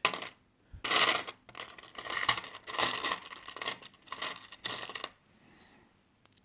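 Loose plastic Lego Technic pieces clattering and clinking as hands rummage through a pile of parts. The sound comes in a string of rattling bursts that stops about five seconds in.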